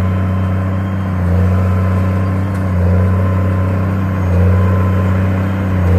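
Tractor engine running steadily in a deep drone, its loudness swelling and easing about every second and a half.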